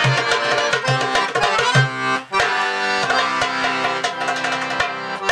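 Piano accordion and darbuka (goblet drum) playing a lively folk tune together. Strong, quick drum strokes under the accordion for the first two seconds, a brief break just after two seconds, then held accordion chords over lighter drum strokes.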